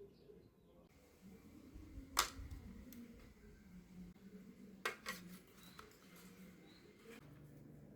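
Two sharp clicks about two and a half seconds apart, the first the louder, over a faint low hum.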